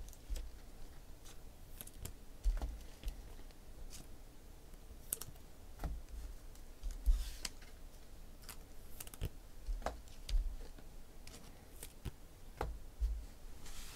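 Scattered light clicks and taps at an irregular pace, with a few dull low thumps mixed in, like small handling or typing noises at a desk.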